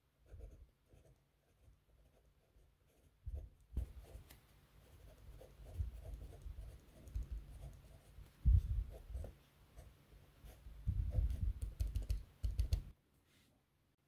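Pentel GraphGear 1000 mechanical pencil writing numbers on grid paper: a run of short, uneven lead scratches and light taps, stopping about a second before the end.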